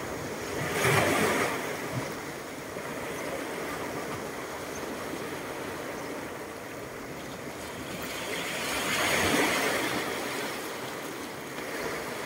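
Small sea waves washing in over a pebble beach: a steady wash that swells into two louder surges, about a second in and again around nine seconds.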